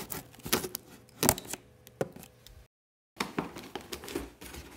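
Cardboard laptop box being opened by hand: its flaps and lid scrape, crackle and knock in irregular sharp clicks and rustles. The sound cuts out completely for about half a second near three seconds in.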